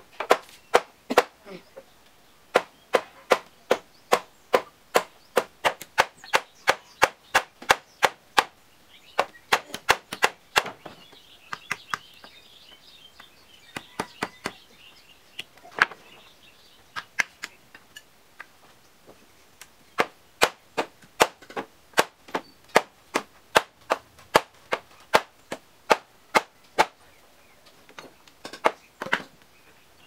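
Repeated sharp strikes of a hand tool chopping wood, about two a second, in runs broken by short pauses.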